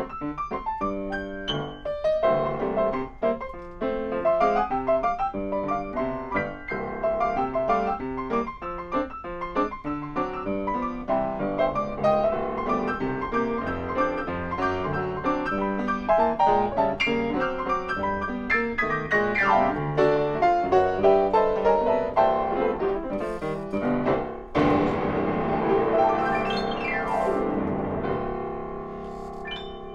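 Solo grand piano played with busy, many-noted passages. About three quarters of the way through, a strong new attack leads into sweeping runs up and down the keyboard, and near the end the playing settles into quieter chords left ringing.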